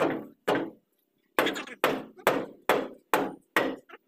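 Repeated heavy knocks, about two a second with a short pause about a second in; each strike dies away over a fraction of a second.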